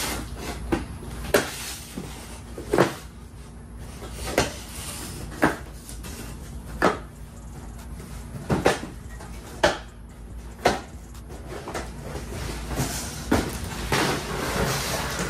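Cardboard shipping boxes being handled and opened: about a dozen sharp knocks and thumps, a second or so apart, with cardboard rustling and scraping near the end.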